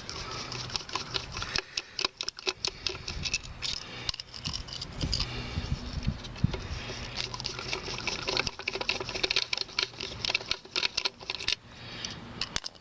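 Phillips screwdriver backing small screws out of a plastic fog light housing: a dense, uneven run of small clicks and scrapes.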